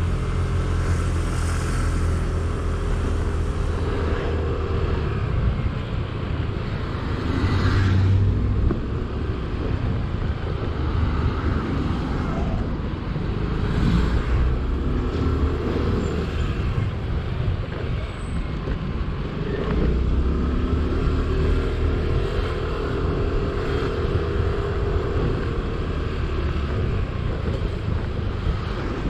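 Yamaha NEO scooter engine running under way, its pitch rising and falling with the throttle. Wind rumbles on the microphone and other traffic can be heard, with a brief louder swell about eight seconds in.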